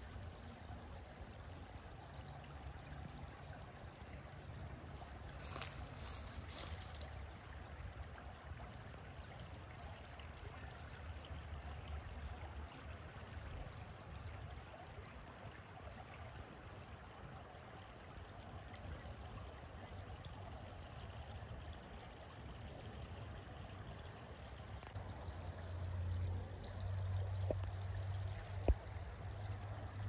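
Shallow creek water flowing and trickling over stones, a steady rush. A low rumble grows near the end, and there is a single sharp click just before it ends.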